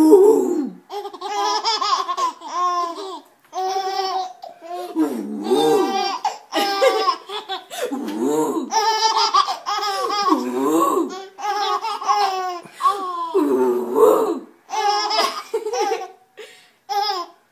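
Babies laughing in repeated high-pitched fits, about a dozen bursts of a second or so each with short breaks between.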